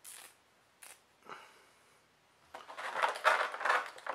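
A few soft rustles, then from about two and a half seconds in, a clear plastic blister tray crackling and crinkling as it is handled.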